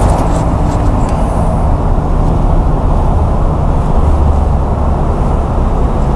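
2013 Honda Civic Si's 2.4-litre four-cylinder engine running steadily while the car moves slowly, a loud, even low rumble.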